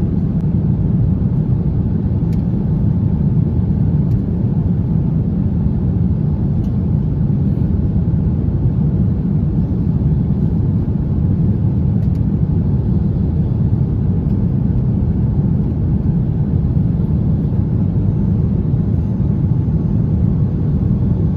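Airliner cabin noise: the jet engines and rushing air make a steady, loud low rumble inside the cabin.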